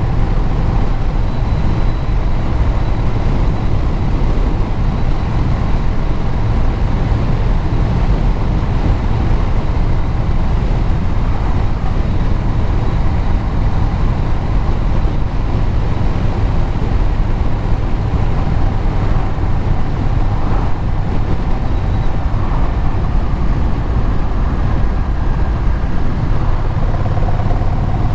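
Engine and exhaust of the vehicle being ridden, with road noise, running steadily.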